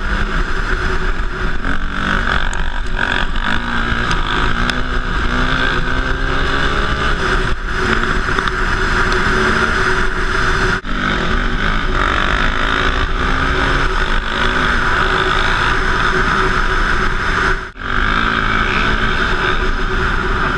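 KTM 450 EXC single-cylinder four-stroke trail bike engine running hard under way, heard from the rider's helmet camera, its note stepping up and down with throttle and gears. The sound briefly dips twice, about halfway through and near the end.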